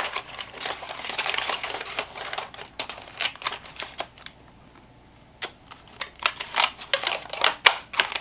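Eyelash packages being handled and stacked by hand: a run of small clicks and taps with some crinkling of packaging, and a brief lull about four seconds in.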